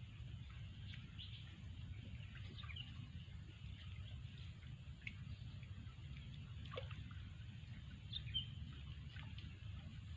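Outdoor ambience: scattered short bird chirps over a steady low rumble, with a faint, steady high hum.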